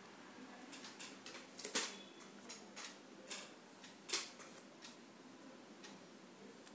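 Metal dissecting needle tapping on a glass microscope slide: a few light, irregular clicks, the loudest about two seconds in, stopping after about four and a half seconds, over faint hiss.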